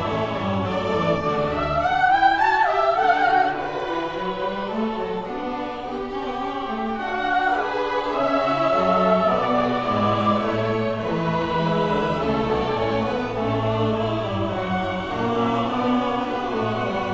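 Symphony orchestra playing classical music, with a high voice singing over it with a wide vibrato, loudest about two to three seconds in.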